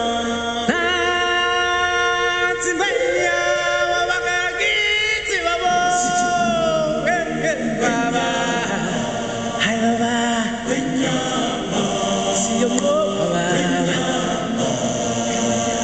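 Background music: a choir chanting in held, wavering notes, with a lead voice sliding in pitch over it.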